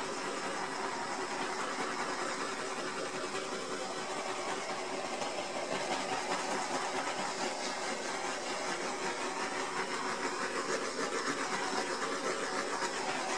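Small handheld gas torch hissing steadily as its flame is swept over wet epoxy resin to burst the air bubbles on the surface.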